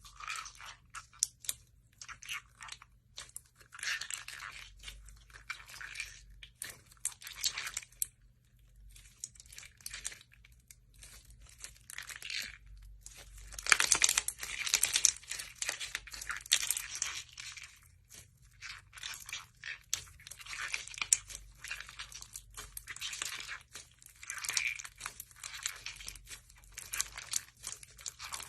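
Slime being squished and pressed by hand, giving bursts of rapid crackly clicks and pops that last a second or few with short pauses between, loudest about halfway through.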